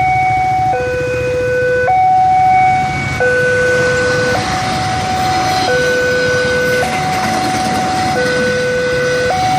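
Railway level-crossing warning alarm sounding, a steady high-low two-tone signal that switches pitch about every second, warning that a train is due. A low rumble runs underneath.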